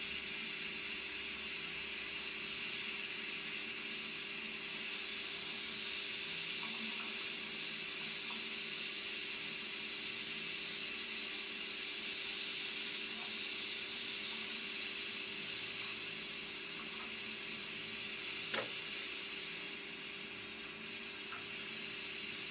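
Soldering torch flame hissing steadily. A single sharp click sounds near the end.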